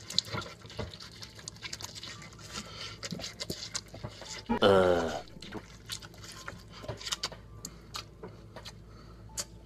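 A boy biting and slurping through a juicy watermelon slice: wet smacking and sucking with many small clicks. About halfway through comes a loud, brief voice-like sound that falls in pitch.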